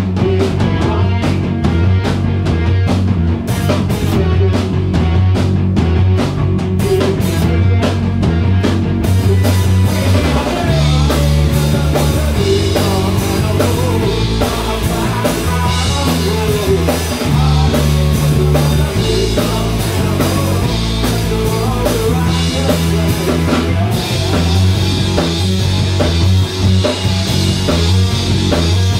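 Rock band playing live: drum kit, bass guitar and electric guitar. The playing grows fuller and denser about ten seconds in.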